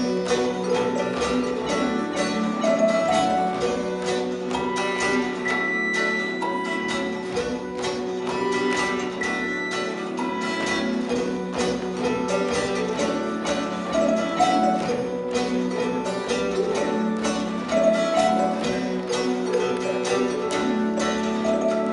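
Instrumental music with a quick, steady beat and a repeating melody.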